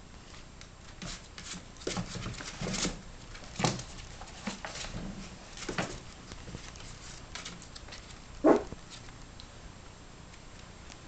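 Yorkshire terrier puppy about a month old moving about on a cloth towel: soft, irregular rustles and paw pats. One louder short sound comes about eight and a half seconds in.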